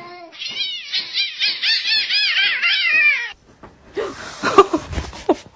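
A cat meows once, then gives a rapid run of high-pitched cries, about four a second for some three seconds. Near the end there is rustling with a few soft thumps.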